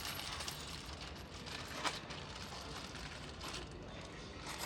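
Faint scattered metal clicks and rattles of bed-frame screws and nuts being handled, with one sharper click about two seconds in.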